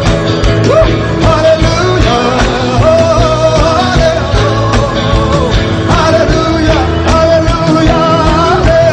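Amharic worship song (mezmur) played live: singing over band accompaniment with a steady beat.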